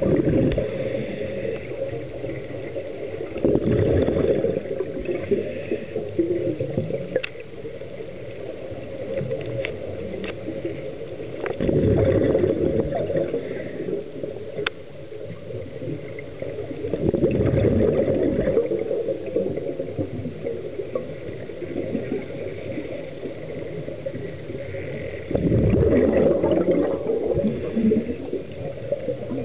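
A scuba diver breathing underwater through a regulator: about every six to eight seconds an exhalation sends out a loud rush of bubbles, with quieter breathing noise in between. A few faint sharp clicks are heard.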